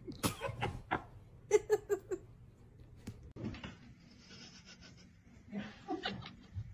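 A dog's noisy yawn, followed by a quick run of about six short laughs.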